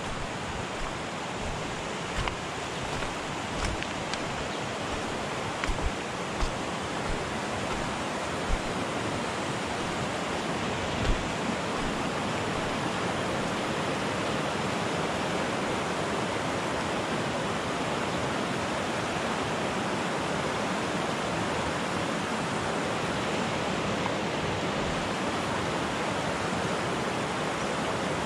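Shallow, fast river rushing over rocks and boulders in rapids, a steady even rush, with a few short knocks during the first dozen seconds.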